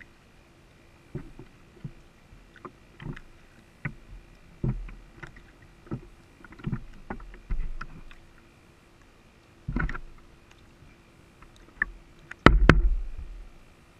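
Choppy water slapping and splashing against a small RC boat's hull, picked up by a GoPro mounted on its deck. A string of short splashes, with two louder ones about ten seconds in and again near the end.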